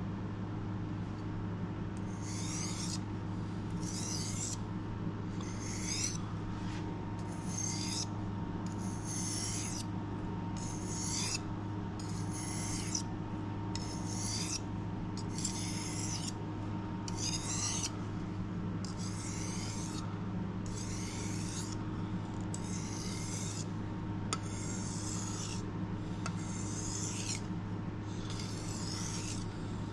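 A kitchen knife blade drawn back and forth across a whetstone, a gritty rasping stroke about once a second from about two seconds in, over a steady low hum.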